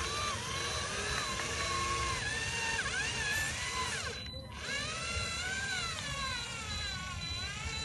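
Whine of a small electric drive motor in a homemade radio-controlled model truck, its pitch dipping and rising as the throttle changes. It cuts back briefly about four seconds in, then picks up again.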